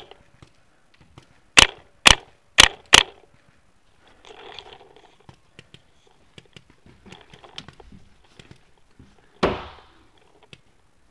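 Paintball marker firing four quick shots about a second and a half in, each a sharp pop roughly half a second apart. About nine seconds in comes a single louder, longer bang that fades out.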